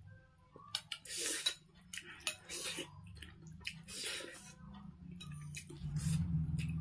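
Metal spoon clicking against a ceramic bowl of noodle soup, mixed with wet slurping and chewing sounds of close-miked eating. A low steady hum comes up near the end.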